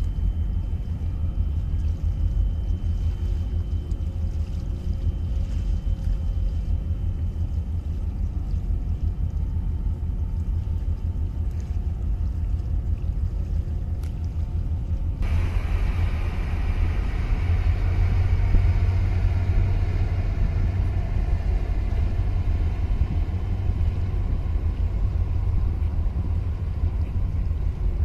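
Harbour waterfront ambience: a steady low rumble, with a brighter hiss that comes in suddenly about fifteen seconds in.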